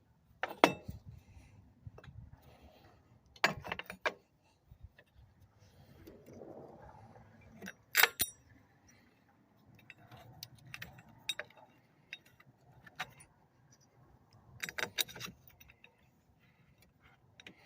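Steel corn head gathering-chain parts clinking and knocking as they are handled and fitted by hand: scattered sharp metallic clanks, the loudest about eight seconds in.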